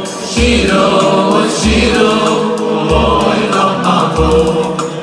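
Live men's choir singing in harmony, backed by a band, with a deep bass beat about every second and a half under the voices.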